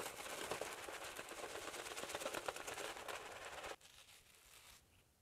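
Simpson Trafalgar T3 synthetic shaving brush swirling shaving-soap lather over a bearded face: a steady swishing of bristles through foam with a fine crackle. It stops abruptly a little under four seconds in.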